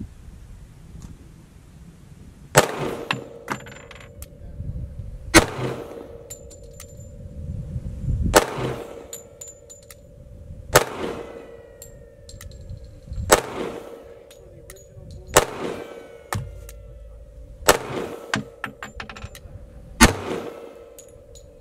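Sig Sauer P220 .45 ACP pistol fired eight single shots, evenly paced about two and a half seconds apart. Each shot is a sharp crack with a short echo.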